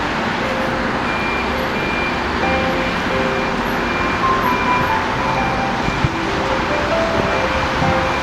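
Island Line Class 483 electric train (ex-London Underground 1938 stock) running, a steady rumble and rush of noise, with a single sharp knock about six seconds in. Held tones stepping between pitches, like a tune, sound over it.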